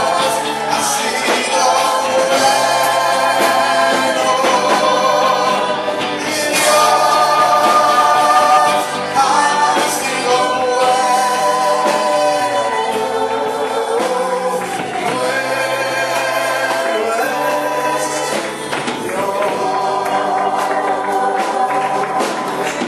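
Gospel worship music: voices singing together over a band with a moving bass line.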